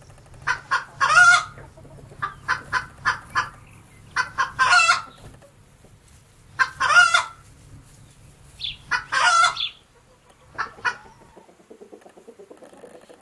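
Chickens cackling: runs of short, sharp clucks, each ending in a longer, louder squawk, repeated four times, with weaker clucks near the end.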